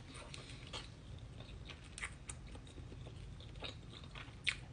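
A person chewing a mouthful of croissant sandwich with bacon and egg, with scattered soft wet mouth clicks, the sharpest near the end.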